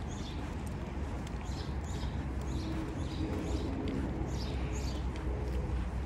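Footsteps on a concrete sidewalk: shoes scuffing in a steady walking rhythm of about two steps a second, over a steady low rumble.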